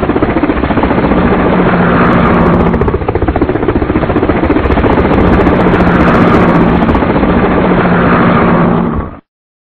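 Helicopter flying: rotor blades chopping rapidly over a steady engine hum, cutting off abruptly about nine seconds in.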